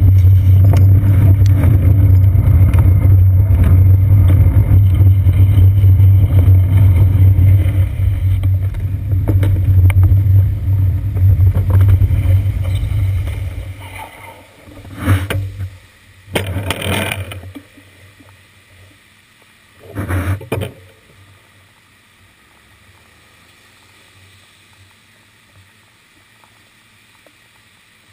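Steady, muffled low rumble of a bicycle riding on wet city pavement in traffic, with a bus close alongside, picked up by a seat-post mounted GoPro. About thirteen seconds in it fades as the bike comes to a stop, leaving three short bursts of noise and then a faint background hum.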